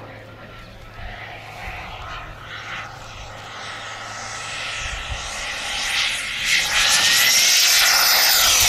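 Radio-controlled model jet flying past: the rushing jet noise and a thin high whine grow from faint to loud over the last few seconds as it comes in low, the whine gliding up in pitch as it approaches.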